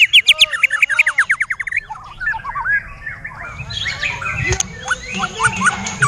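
White-rumped shama singing at close range: a fast run of short, repeated falling notes, about nine a second, for the first two seconds, then varied whistled phrases and chirps.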